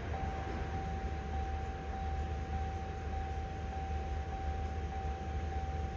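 A steady, high electronic tone held without a change in pitch, over a low hum.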